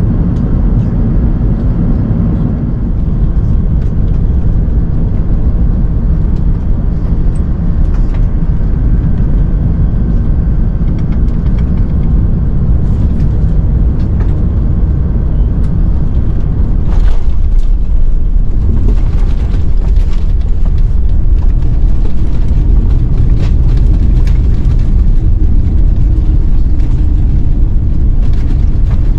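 Airbus A380 cabin noise on the approach to landing: a steady, deep rumble of engines and rushing air, a little louder from about seventeen seconds in, with a few brief clicks or knocks.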